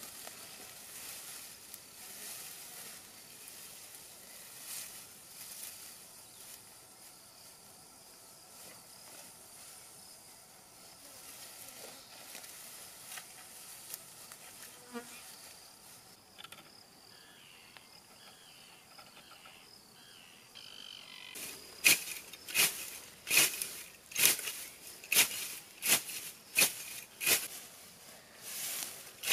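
Faint insect buzzing and the soft rustle of grass and branches being laid on a grass shelter. About three-quarters of the way through, a sickle starts cutting grass in a steady run of strokes, about one and a half a second, which are much louder than the rest.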